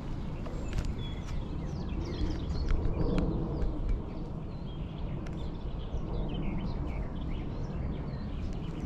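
Small birds singing in short, quick chirps from the riverside trees, over a steady low rumble of breeze on the microphone, with a few light clicks.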